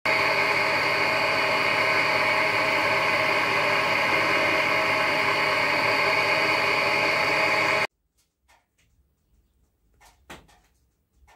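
Small bench milling machine running steadily, its motor and spindle drive giving a constant whine with several fixed tones. It starts abruptly and cuts off suddenly after about eight seconds. A few light clicks and taps follow from the brass cylinder block being handled.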